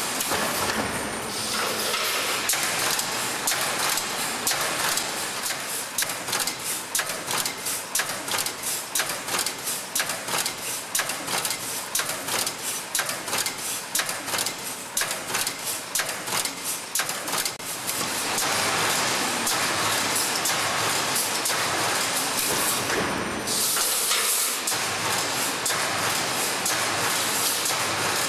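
Automatic wire spacer resistance-welding machine running, with rapid, evenly spaced clacking from the wire feed and spot-welding heads. After about two-thirds of the way it changes to a denser, steadier machine noise.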